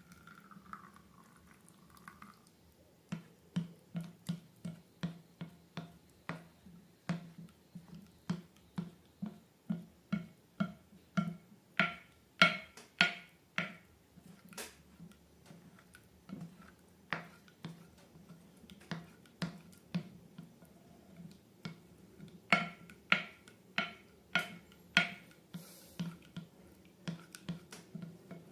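Slime being pressed and pulled by hand, making a steady run of sticky popping clicks, about two to three a second, starting about three seconds in.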